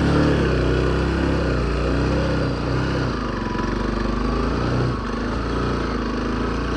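Motorcycle engine running as the bike is ridden over a rough, broken track, its note rising and falling with the throttle.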